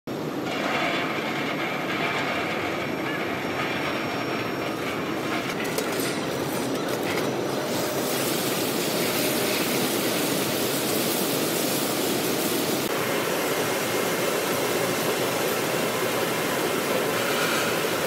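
Industrial tomato washing machine running: a steady mechanical rumble with some clatter as cherry tomatoes are tipped into the elevator hopper. From about eight seconds in, the steady rush of the bubble washer's water sprays fills the sound.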